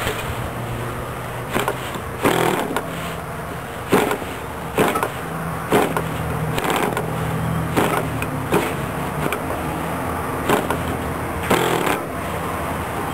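PAW 2.49 cc model diesel engine being hand-flicked by its propeller to start, firing in short pops about once a second without settling into a steady run.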